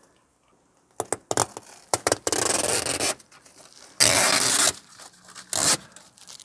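Backing being peeled off an adhesive-backed strip: a few short clicks about a second in, then three ripping pulls, the first two each under a second long and the last one brief.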